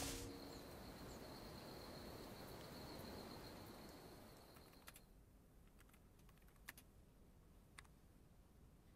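Near silence, with a faint hiss fading out over the first four seconds, then a few faint, isolated clicks of laptop keys being tapped.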